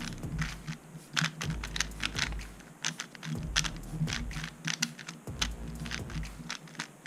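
Moyu Weilong WR M 3x3 speedcube being turned quickly, a rapid, irregular run of plastic clicks and clacks as the layers snap round, typical of scrambling the cube.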